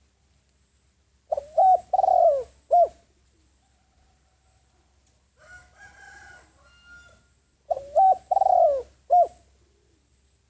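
Spotted dove giving its cooing call: two phrases about six seconds apart, each a few short rising notes around one longer falling coo. It is the advertising call of a decoy male, used to draw in wild doves.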